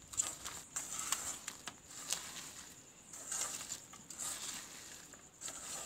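Bare hands squeezing and turning a moist mix of sliced onions, shredded potato, green chillies and ground soaked black chickpeas in a metal bowl: soft, irregular rustling and squishing with small clicks against the bowl.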